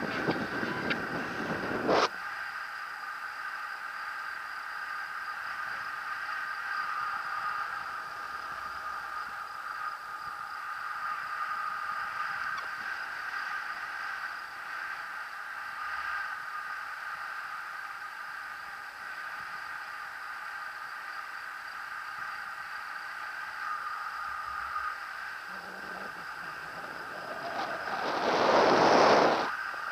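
Wind rushing over the microphone of a paraglider pilot in flight, with a strong gust in the first two seconds and another building up near the end. A steady high whine holding one pitch runs underneath.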